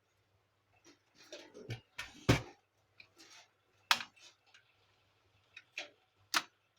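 Sharp clicks and knocks with short scraping sounds from hands working on the plastic parts and casing of a Canon imageCLASS MF4750 laser printer being taken apart. The loudest clicks come about two, four and six seconds in.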